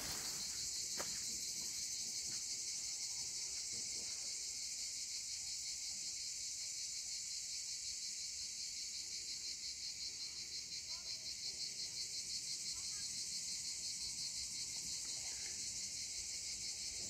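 Cicadas singing in a steady, high-pitched chorus with a fast, even pulsing.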